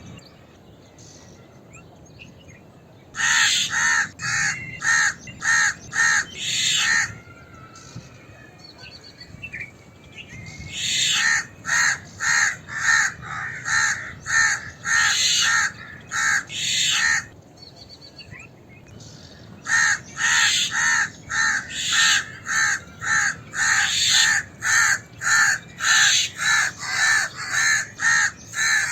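A crow giving harsh alarm caws in rapid runs of about two calls a second, in three bouts separated by short pauses.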